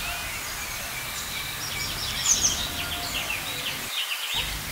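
Small songbirds chirping and singing, their calls coming again and again, over a steady low background rumble.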